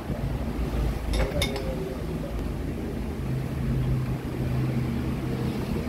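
Low mechanical rumble like a running motor, with a steady hum settling in about halfway through. A couple of sharp clicks of a tool on the metal pump come about a second in.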